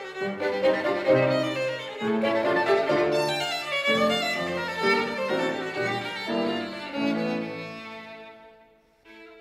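Violin and piano playing classical music; the phrase dies away about eight seconds in, and a new note begins near the end.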